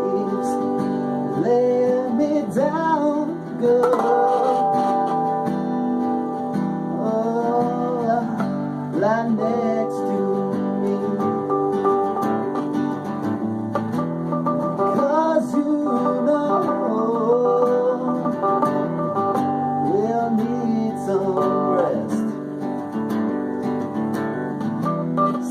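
Music: a song led by plucked acoustic guitar, with a melody line that slides between notes.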